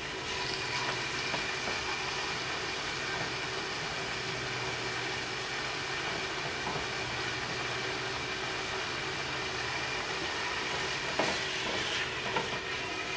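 Chicken strips sizzling steadily in a dry skillet with no oil, stirred with a spatula; a couple of light spatula knocks against the pan near the end.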